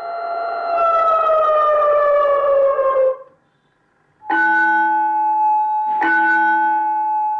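Recorded siren tone played through an automatic school bell system's amplifier and horn speaker. It holds steady, then winds down in pitch and stops about three seconds in. After a short pause comes a recorded traditional metal bell, struck twice about a second and a half apart, each strike ringing on.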